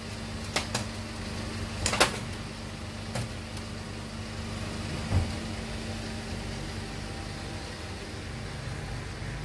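A few sharp metallic clicks and knocks over a steady low hum, as the cover bolts are worked loose from a submersible pump's casing. The loudest knock comes about two seconds in.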